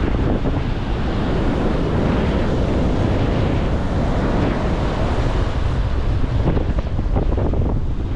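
Strong wind buffeting the microphone, over the steady wash of rough ocean surf.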